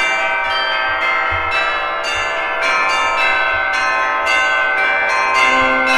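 Peal of church bells, struck one after another about twice a second, each tone ringing on and overlapping the next.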